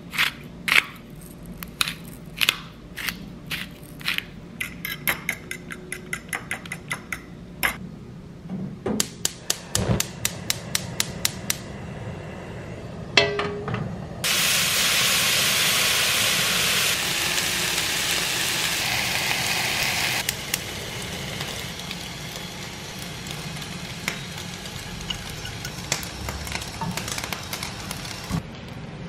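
A fork whisking eggs in a ceramic bowl, with quick runs of clinks against the bowl. About halfway through, food hits a hot pan and starts sizzling loudly. After a few seconds the sizzle settles lower, with light taps of cooking utensils.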